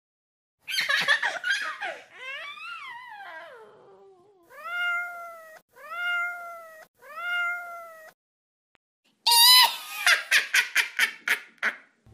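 A domestic cat meowing: three separate meows in a row, each rising then falling in pitch, after a long falling call. Near the start and again near the end come louder runs of quick, short high cries.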